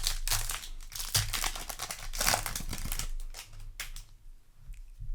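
Crinkling and rustling of a foil trading-card booster pack and its cards being handled, with dense crackles for about four seconds before it goes quieter.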